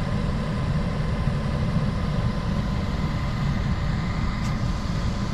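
Motor vehicle engine idling steadily, a low rumble.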